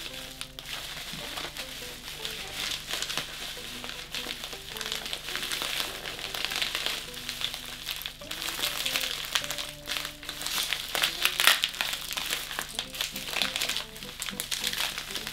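Bubble wrap crinkling and rustling as it is unwrapped by hand, with light background music throughout.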